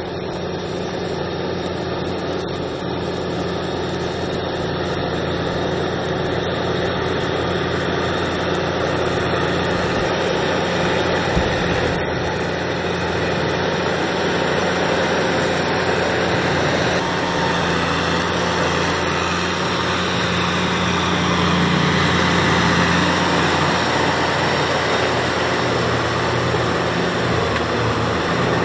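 Kubota M6040 SU tractor's four-cylinder diesel engine running steadily under load while it drives a rear rotary tiller and pushes a front blade through wet mud, growing somewhat louder about two-thirds of the way through.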